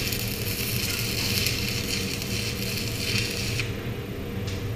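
Stick welder arc crackling and sizzling as weld metal is run inside a nut set over a deformed bolt head, to fuse the nut to the bolt for removal; the arc breaks off about three and a half seconds in. A steady low hum runs underneath.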